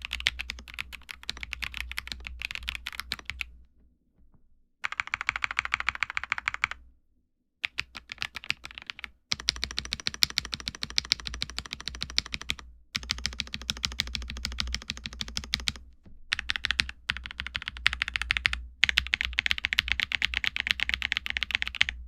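Fast typing on an Akko ACR TOP 40 mechanical keyboard fitted with Akko CS Piano switches: a dense run of key clacks. It stops abruptly several times for brief silences, then starts again.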